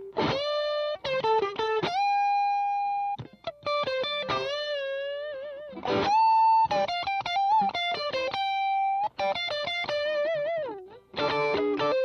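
Electric guitar played through a Demonfx Breaker Drive, a Marshall Blues Breaker–style overdrive pedal: a lead line of single notes with string bends, vibrato and a few long held notes.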